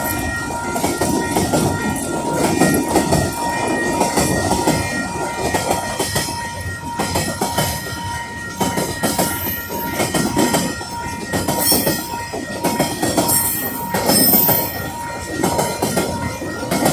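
Freight train wagons rolling past, wheels clattering and knocking over the rail with brief high-pitched wheel squeals. Level crossing bells ring steadily for the first several seconds, then fade out.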